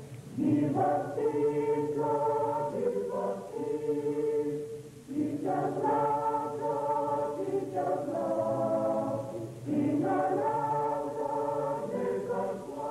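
A choir singing in three long phrases, with short breaks between them.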